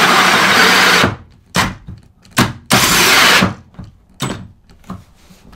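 Makita cordless drill spinning a large hole saw through a plywood sheet: a steady cut for about a second, then stop-start bursts on the trigger, the longest just after the middle.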